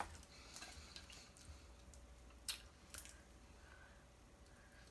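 Faint eating sounds as snow crab meat is eaten by hand: a few short, sharp clicks, one at the start and two more about two and a half and three seconds in, over a quiet background.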